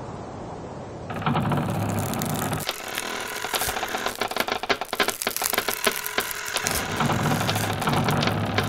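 Dense, rapid mechanical clicking and ratcheting, a sound effect for the wooden clothespins and their steel springs, starting about a second in after a steady hiss. A low hum comes and goes beneath the clicks.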